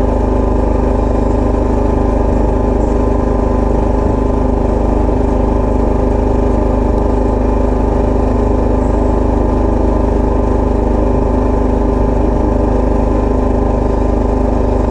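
A fishing boat's engine running steadily at a constant speed, a loud even drone that holds one pitch throughout.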